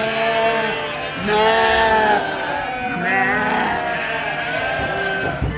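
Several sheep bleating, one long call after another, overlapping.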